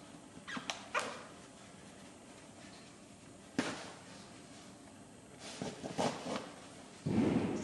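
Hand-sewing a grommet in canvas: the needle is pushed through with a sailmaker's palm and the thread is drawn through the cloth. A few short sharp scrapes, then a longer, louder rasping pull near the end.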